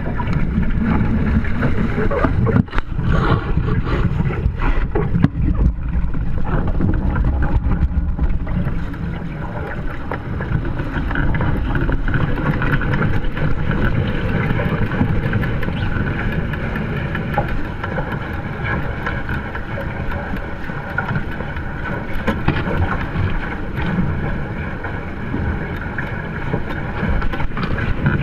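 Wind buffeting the microphone and water rushing along the hulls of a Hobie Tiger Formula 18 catamaran under sail, a steady rush that is gustier in the first several seconds.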